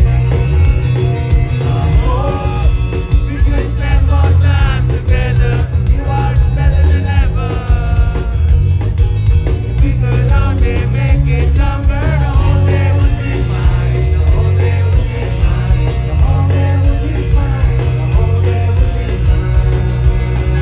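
Live rock band playing loud: a lead singer over electric guitar, drums, bass and keyboards. The vocals come in about two seconds in, over a heavy, booming low end.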